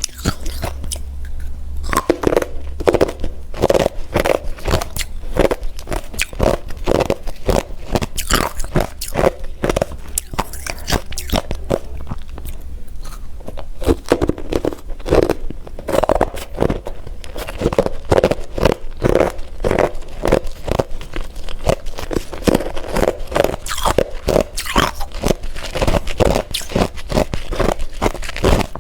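Hard refrozen crushed ice being bitten and chewed close to the microphone: a continuous run of crunches, several a second.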